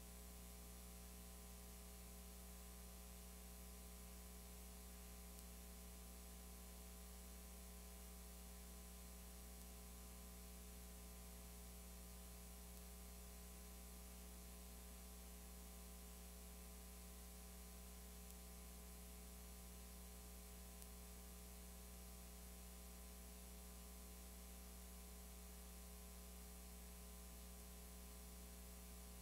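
Near silence: a steady low electrical hum with faint even hiss, unchanging throughout.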